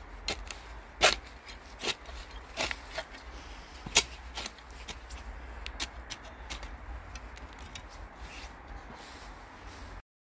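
A small metal hand shovel scraping and scratching through dry soil and grass, in a string of sharp scrapes and taps. The loudest come about a second in and at four seconds, and they grow sparser in the second half.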